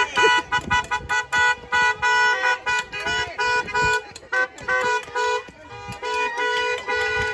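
Car horns honking over and over in short, overlapping toots, several horns at once, with longer held honks near the end.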